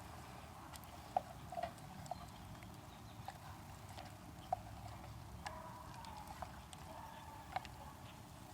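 Pecan-wood campfire crackling faintly, with scattered sharp pops at irregular intervals.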